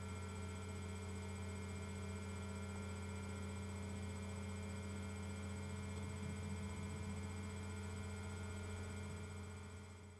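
Steady low electrical hum with faint hiss, fading out near the end.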